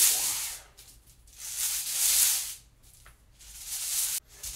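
Plastic hula hoop swishing as it spins around the waist: three hissing swells that rise and fade with quiet gaps between them.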